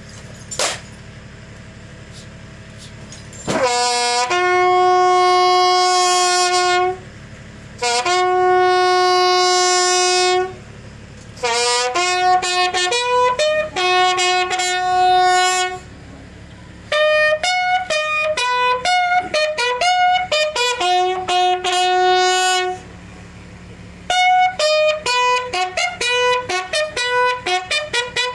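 A lone bugle sounds a call, starting about three and a half seconds in: long held notes at first, then quicker runs of short notes on its few natural pitches. It is the salute played for a fallen soldier.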